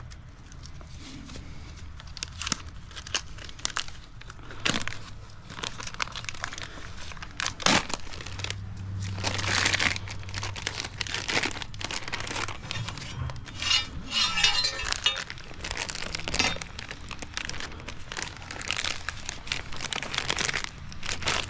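Packaging crinkling and rustling as it is handled and torn, with scattered irregular clicks and knocks; most likely the wrapping of a new replacement mower blade being opened.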